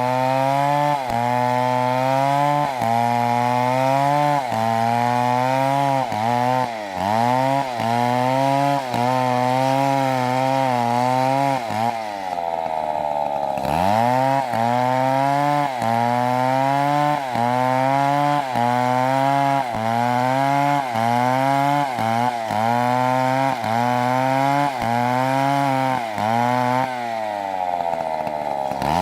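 Two-stroke chainsaw running at high revs while cutting wood. The engine note dips briefly about once a second as the chain bites under load. About halfway through and again near the end it drops away for a second or two, then revs back up.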